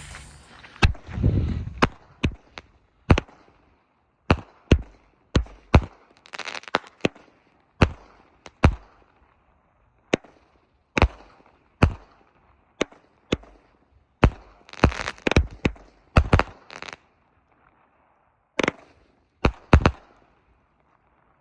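Two consumer multi-shot firework cakes, Legend's Full Moon Hunter and Full Moon Night, firing together: a run of sharp aerial shot reports, roughly one or two a second, a few followed by brief crackling. The shots stop about 20 seconds in.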